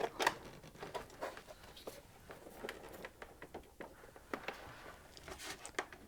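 Irregular small clicks, taps and rustles of a power lead being handled and plugged in, the loudest click near the start.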